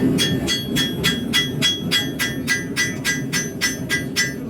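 Blacksmith's hand hammer striking steel on an anvil in a steady rhythm, about three to four blows a second, the anvil ringing with each blow as a blade is forged by hand.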